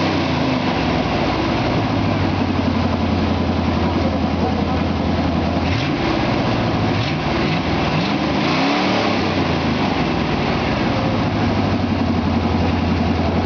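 Chevy Nova engine idling steadily, revved briefly three times about six to nine seconds in, the revs rising and falling back to idle each time.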